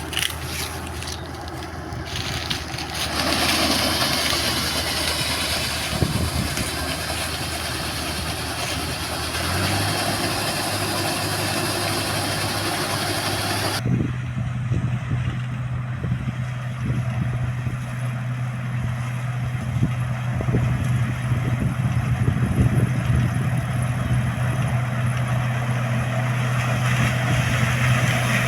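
Heavy farm machinery's engine running steadily, with the hum rising slightly in pitch about ten seconds in. The sound changes abruptly about fourteen seconds in to a stronger, steady low engine drone.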